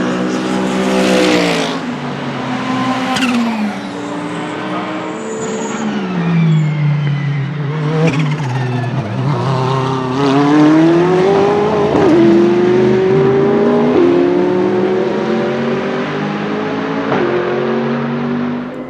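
Ferrari 488 GT3's twin-turbo V8 racing engine: the revs fall in steps as it brakes and shifts down over the first several seconds, then climb again, with upshifts about twelve and fourteen seconds in.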